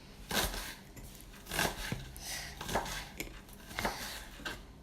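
Kitchen utensils and dishes clinking and knocking, about five short separate knocks, as chopped vegetables are laid into a dish and pressed down.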